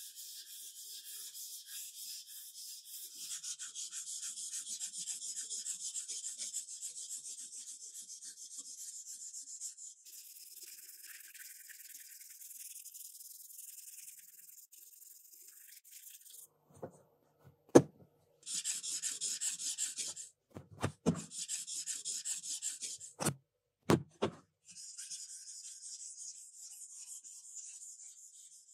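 Kitchen knife blade being stroked back and forth on a whetstone in quick, continuous sharpening passes, a dry rasping hiss. In the second half the strokes come in separate runs, broken by a few sharp knocks.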